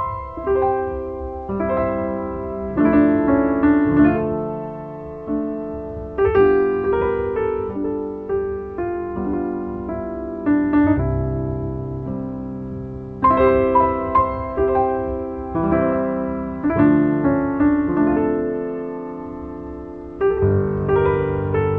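Background piano music: chords and melody notes, each struck and dying away.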